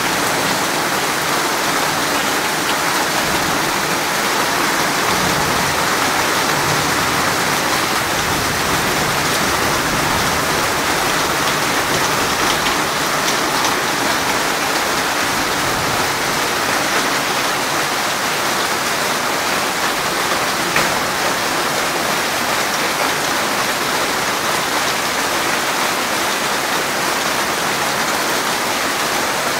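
Steady rain falling on open ground: a dense, even hiss of countless drops that holds constant, with one brief tap about two-thirds of the way through.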